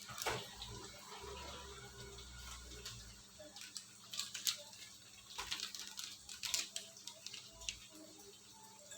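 Faint kitchen handling sounds: a sharp click at the start, then clusters of small clicks and clinks of utensils and containers through the middle, over a faint watery noise.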